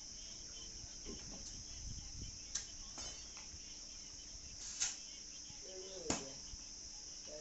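A steady high-pitched hiss or chirring, with a few sharp clicks spread through and a brief voice-like sound about six seconds in.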